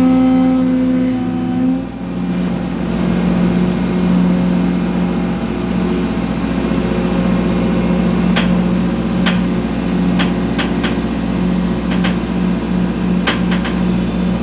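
Excavator's diesel engine running, its pitch dropping about two seconds in as the revs come down, then holding steady. Several sharp clicks or knocks come over it in the second half.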